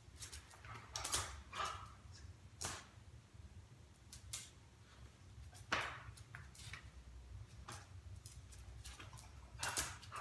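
A few short, scattered scuffs and rustles as a dog and its handler move about on a concrete floor during silent trick practice, over a low steady hum.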